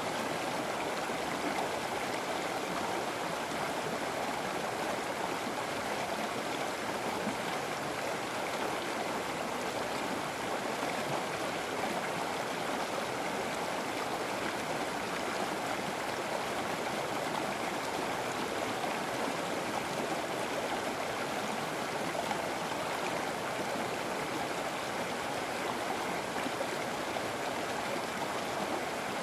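River water flowing steadily over rocks, an even rushing and gurgling of current.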